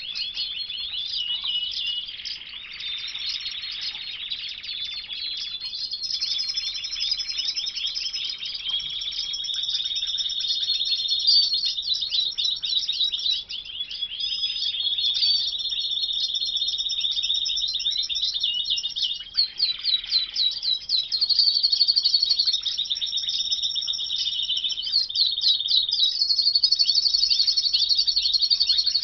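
Caged domestic canaries singing: a continuous song of fast trills and rolling phrases mixed with held whistled notes.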